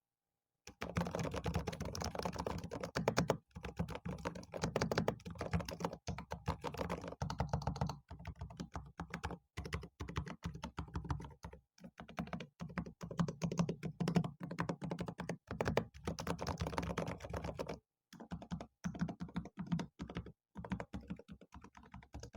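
Fast, continuous typing on a Keychron K8 Pro SE mechanical keyboard, picked up close to the keys: a dense run of key strokes starting about a second in, with a few brief pauses. The switches are ones the owner takes for browns.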